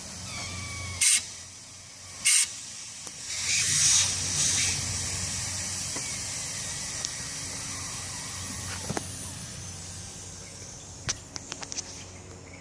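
Two short, sharp spray bursts, then about a second of louder hissing that fades to a faint steady hiss, with a few small clicks near the end. The sounds come from checking a Corksport turbo inlet pipe for air leaking through pinholes in its weld.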